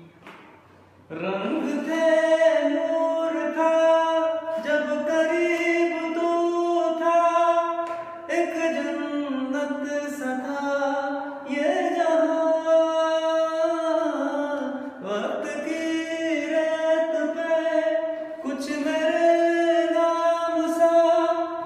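A voice singing long, drawn-out notes with no instruments, in phrases of a few seconds each. It starts about a second in with an upward slide into the first note.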